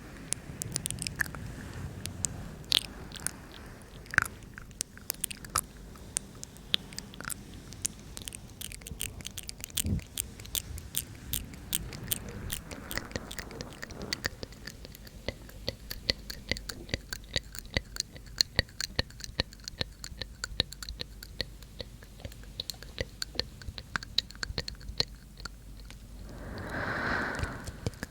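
Close-miked ASMR mouth sounds: wet tongue and lip clicks, sparse at first, then a fast, dense run of clicks through the second half, with a short breath near the end.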